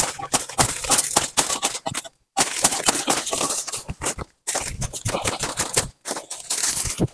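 Dense crackling and rustling of cardamom leaves and stalks being torn and pulled up by hand, made of many quick sharp clicks. It stops abruptly a few times.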